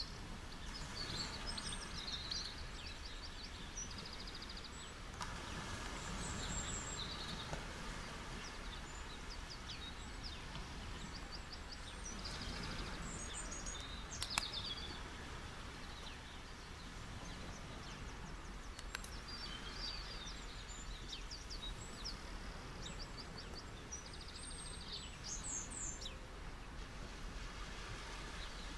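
Gentle ocean waves washing on a beach: a steady low wash that swells now and then. Small birds chirp high and quick throughout, and there is one sharp tick about halfway through.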